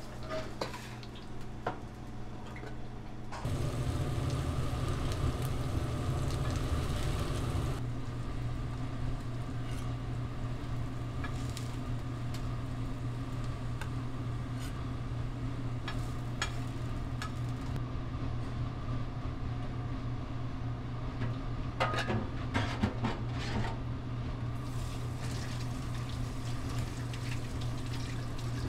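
Burger-kitchen noise: a steady mechanical hum, with a louder rush for about four seconds near the start and scattered clicks and clinks of utensils and dishes.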